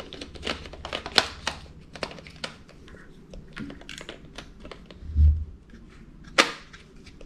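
Small plastic clicks and taps from handling a Canon Rebel T5 DSLR body and its kit lens while the lens is being fitted onto the mount. A dull thump comes about five seconds in, then a sharper single click about a second later.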